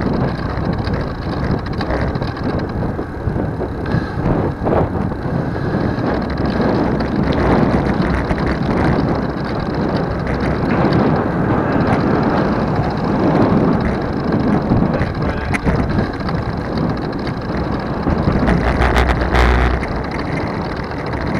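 Wind rushing over the microphone and tyre and road noise from a 2020 Trek Dual Sport 4 hybrid bicycle being ridden, a steady low rumble with gusts. Near the end there is a short run of clicks and a heavier rumble.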